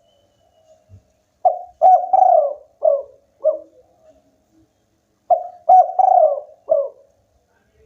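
Spotted dove cooing: two phrases of about five low coos each, one beginning about a second and a half in and the next about five seconds in.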